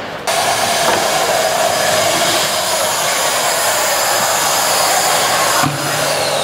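Merlin 2-in-1 mini vacuum cleaner, a 1000-watt bagless machine, running at full suction with a steady whooshing motor-and-airflow noise. It jumps louder about a quarter second in and dips briefly near the end.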